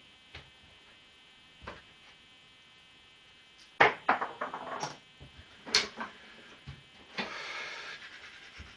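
Tools and motorcycle parts being handled during a strip-down: scattered knocks and clicks, a quick run of clattering knocks about four seconds in, another knock about six seconds in, and a scraping rustle lasting about a second near the end.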